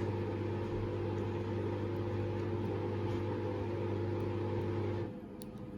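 Washing machine running with a steady motor hum, which stops abruptly about five seconds in.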